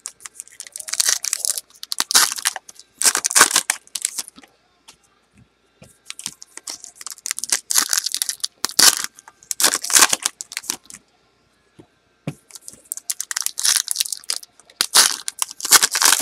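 Crinkling and tearing of a trading-card box's or packs' wrapping being opened by hand, in three bouts of rustling with short pauses between.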